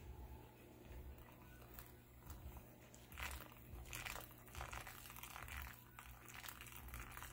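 Faint, irregular splashing of a thin stream of hot water poured from a gooseneck kettle onto wet coffee grounds in a paper filter, more noticeable from about three seconds in.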